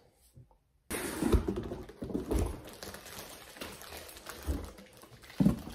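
Handling noise from unpacking a cardboard box of shrink-wrapped drink cans: irregular knocks, taps and rustling. It starts about a second in, after a brief silence.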